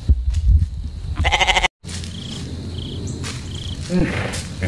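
Goat bleating: a wavering bleat about a second in that cuts off abruptly. After a short gap a different animal sound track starts, with a low steady hum and a deeper gliding call near the end.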